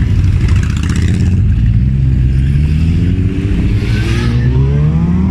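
Loud low rumble of motorcycle engines riding past close by. Over the last few seconds one engine revs up, its pitch climbing steadily as it accelerates away.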